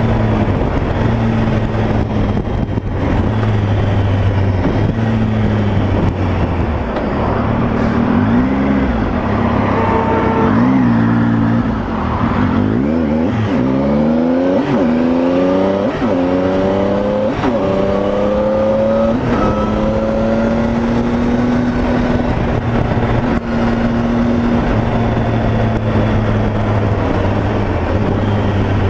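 Motorcycle engine with heavy wind rush, heard from the rider's seat while riding: steady cruising, the revs dropping about eight seconds in, then climbing and falling back several times between about twelve and twenty seconds in before settling to a steady cruise again.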